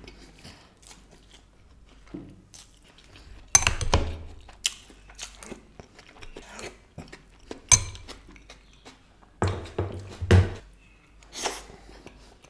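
Close-miked chewing and wet mouth sounds of someone eating biryani by hand, with a few sharp louder clicks or knocks scattered through.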